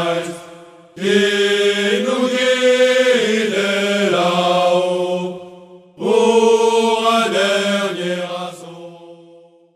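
A chorus of men singing a slow military marching song in unison, in long held phrases. The singing breaks briefly twice, then fades out near the end.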